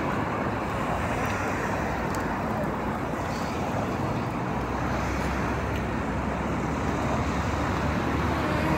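Steady city road-traffic noise, an even hum of passing vehicles with no distinct events.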